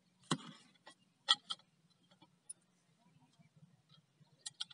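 A few sharp clicks and knocks, one about a third of a second in, two just over a second in and a quick run near the end, from pipe, chain and fittings being handled at a borewell casing while a submersible pump is lowered into it.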